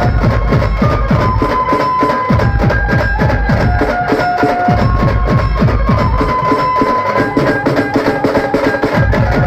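Maharashtrian banjo band playing: a melody of long held notes over fast, dense drumming with a heavy bass drum.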